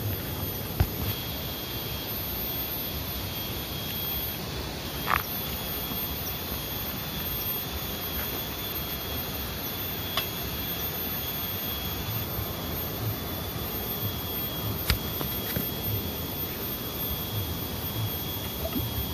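Forest background with a steady high-pitched insect drone over a constant hiss. A few sharp clicks and one short squeak about five seconds in stand out above it.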